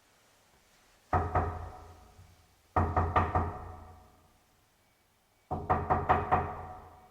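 Knocking in three bouts: two knocks about a second in, a quick run of four near the middle, and five more near the end, each knock ringing briefly. Processed as 8D binaural audio.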